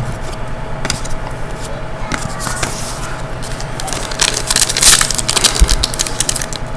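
Hockey card packs and cards being handled: a continuous crinkling and crackling of pack wrappers and card stock, getting busier and louder a little past the middle.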